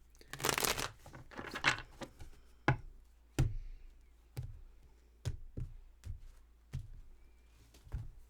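Tarot cards being handled on a table: a couple of brief rustles, then a series of sharp taps and knocks, roughly one a second, as cards are set down.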